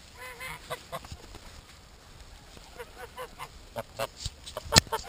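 White domestic geese honking in short calls, several in quick succession. A run of sharp clicks follows, one of them loud, near the end.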